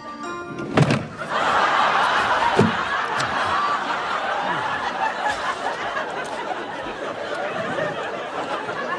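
Studio audience laughing, breaking out about a second in after a short knock and carrying on, easing off gradually.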